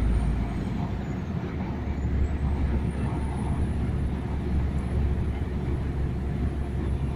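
Steady engine and road rumble heard inside the cab of a large vehicle cruising on a highway, heavy in the low end with an even road-noise hiss above.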